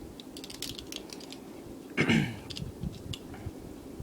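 Balisong (butterfly knife) handles and blade clicking and clacking against each other as it is dropped, rolled over the index finger and flipped. A quick run of clicks comes first, and a louder brief sound follows about two seconds in.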